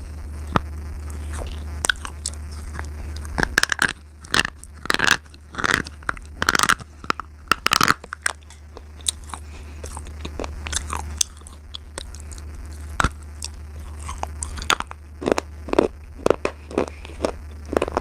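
Slate pencil being bitten and chewed close to the microphone: a run of sharp, irregular crunches, loudest and thickest a few seconds in and again near the end, over a steady low hum.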